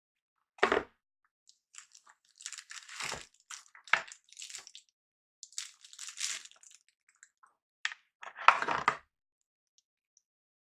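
Cardboard and plastic packaging rustling and crinkling while a liquid CPU cooler is unpacked, with a few sharper knocks and clicks in between.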